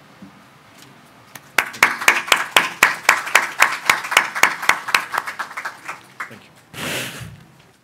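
Audience applauding, the individual hand claps standing out at about four a second; the applause starts about a second and a half in and dies away after about six seconds. A brief rush of noise follows near the end.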